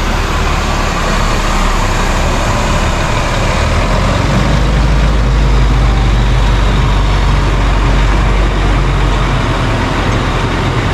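Concrete mixer truck's diesel engine running steadily, a loud low hum that does not let up.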